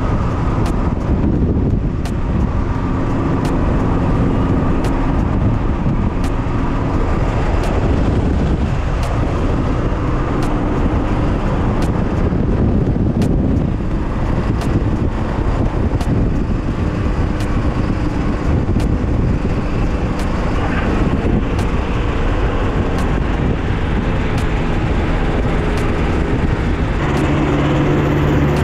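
Ultralight trike's engine running under a heavy rush of wind on an open-air microphone through the approach and landing rollout, its pitch shifting as the throttle changes. Near the end the engine settles to a steady idle tone.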